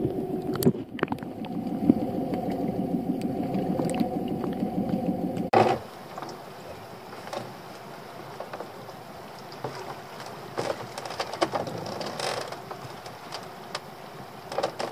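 A steady hum of layered low tones heard through an underwater camera, cutting off suddenly about five seconds in. Then the quieter open-air sound of a lobster pot being hauled aboard a small boat by hand: the rope and the pot give scattered light knocks and clicks.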